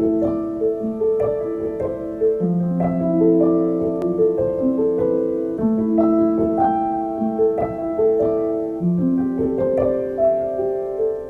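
Background music: a gentle piano melody of single held notes played one after another.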